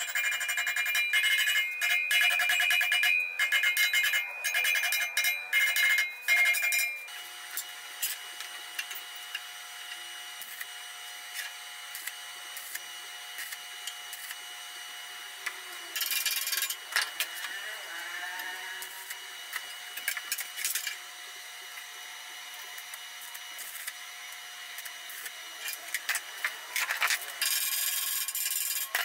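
Hand hammer striking steel at the socket of a giant axe head: a fast series of ringing metal blows for about the first seven seconds. Then a quieter stretch with a faint steady ringing hum and a few scattered taps, and more tapping near the end.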